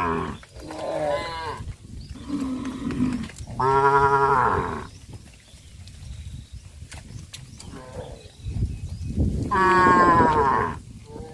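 Cows mooing: several long calls one after another, the loudest about four seconds in and another long one near the end, with a quieter stretch between them.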